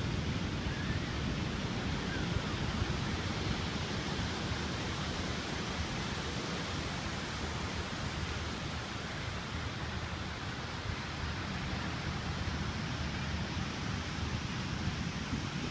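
Steady rushing noise with a low rumble underneath and no distinct events.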